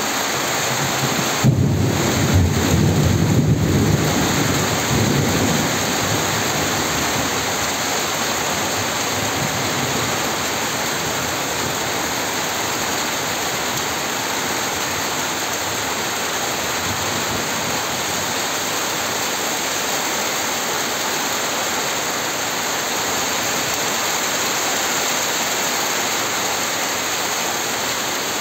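Rain falling steadily, an even hiss throughout. A low rumble of thunder rolls in about a second and a half in and dies away by about five seconds.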